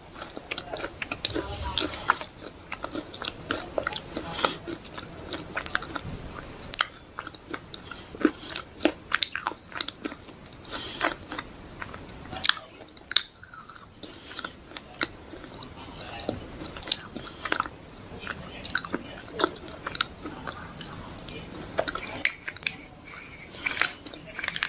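A person biting and chewing dry clay close to the microphone: a string of crisp, irregular crunches and snaps, some louder than others, with softer chewing between.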